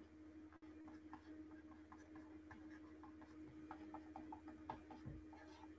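Near silence: faint, irregular ticks of a stylus tapping on a tablet screen while handwriting, over a steady faint electrical hum.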